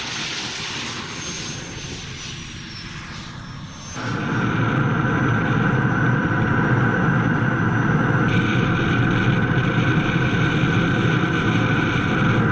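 Engine noise: a high whine falling slowly in pitch, then an abrupt change about four seconds in to a louder, steady engine drone.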